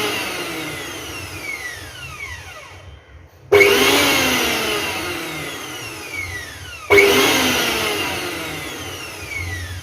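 A 900-watt mixer grinder's motor runs with no jar fitted, switched on in short bursts. Twice, about three and a half seconds apart, it starts suddenly at full speed, then spins down with a falling whine.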